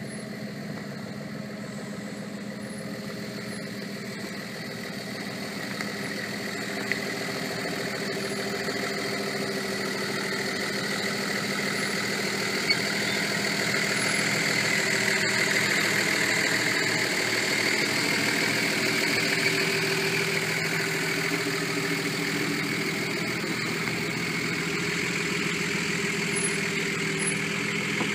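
Nissan GU Patrol's TD42T 4.2-litre turbo-diesel straight-six running steadily at low revs as the 4WD crawls over a rutted dirt track, growing louder over the first half as it comes close.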